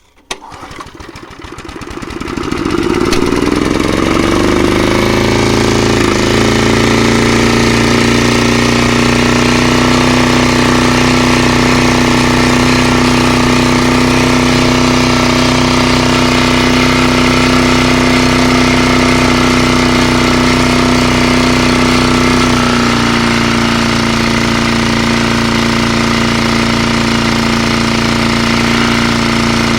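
Briggs & Stratton 3.5 hp single-cylinder four-stroke petrol engine on a vintage Hayter Hayterette lawnmower, cold-started on its automatic-choke setting. It catches just after the start, its speed climbs over the first few seconds, and then it runs steadily. Its pitch drops slightly about two-thirds of the way through.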